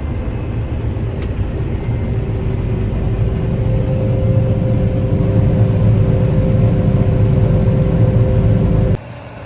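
Combine harvester running through a soybean field, a heavy low rumble that grows louder, with a steady hum joining about three seconds in. It cuts off suddenly about nine seconds in.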